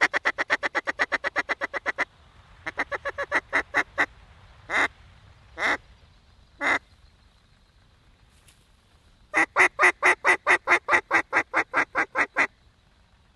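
Mallard duck call blown hard: a long, fast run of quacks that fades off, a shorter run that builds, three single drawn-out quacks about a second apart, then another long run that fades off. This is hen-mallard calling to work a flock toward the decoys.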